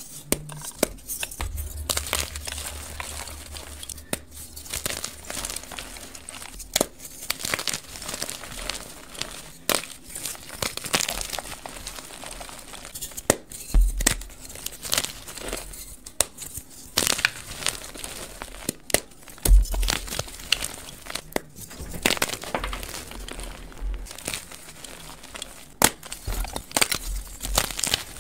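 Blocks of dyed gym chalk squeezed and crumbled by hand: a dry, crumbly crunching with frequent sharp cracks as pieces snap off.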